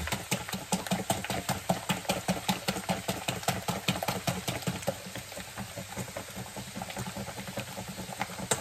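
Wire balloon whisk beating a batter in a stainless steel bowl, the wires clicking against the metal in a quick steady rhythm of about four or five strokes a second, a little softer in the second half.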